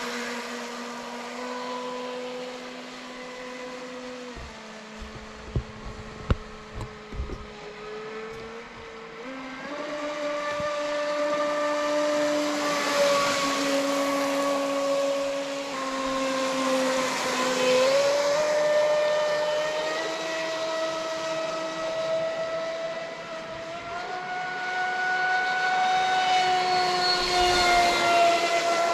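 Brushless motor of a Traxxas Spartan RC boat (a 1600kV 4082) whining at speed, its pitch dropping, climbing and dipping as the throttle changes, and highest near the end. A hiss of prop spray joins it around the middle, and a few low thumps come about five to seven seconds in.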